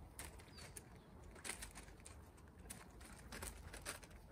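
Quiet outdoor ambience with a few faint, crisp rustles, the clearest about a second and a half in and near the end, and one brief, faint bird chirp.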